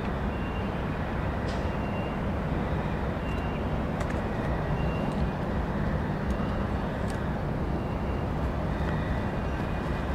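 Steady rumble of a train rolling by, with a few sharp clicks scattered through it.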